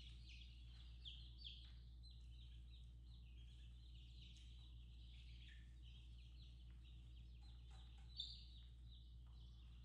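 Baby chicks peeping continuously: many short, high, downward-sliding chirps overlapping one another. A low steady hum runs underneath, with a few light knocks as the wooden frame is handled, the clearest just after eight seconds in.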